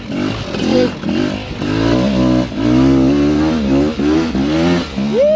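250 cc two-stroke enduro motorcycle engine revving up and down over and over under bursts of throttle while climbing a steep uphill.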